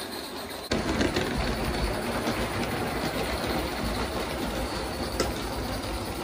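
G-scale model freight train hauled by a live steam 0-4-0 running along the track: a steady rush of rolling wheels with a low rumble and occasional clicks. It gets louder about a second in.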